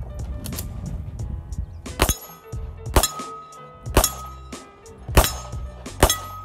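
Five pistol shots from a CZ P01 Omega 9mm handgun, about one a second, starting about two seconds in, over background music.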